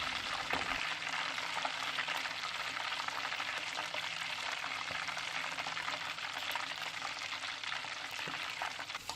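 A whole pork hock deep-frying in hot oil over a low flame, with a steady sizzle and many fine crackles.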